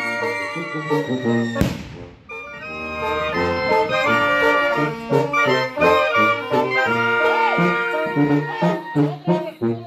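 Brass band with sousaphones playing. A held chord breaks off about a second and a half in, with a sharp hit and a short pause, then the band plays on with a steady, repeating bass line under the horns.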